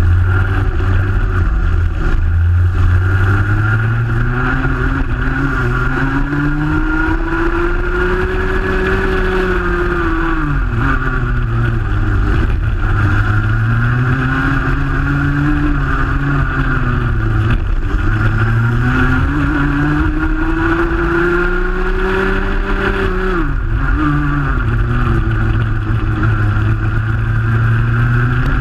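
Junior Max racing kart's 125cc two-stroke engine heard onboard at race pace, its pitch climbing steadily on each straight and dropping sharply three times as the throttle is lifted for the corners.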